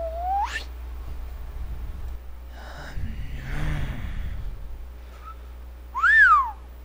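Cartoon-style sound effects: a quick rising whistle at the start, a breathy huffing sound in the middle, and a louder whistle that rises and falls near the end, over a steady low hum.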